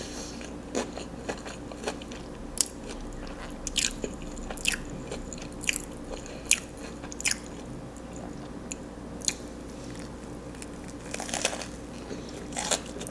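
Close-miked chewing of a mouthful of crispy fried chicken sandwich with Cheetos in it: sharp, irregular crunches every second or so, with a quicker run of crunches near the end.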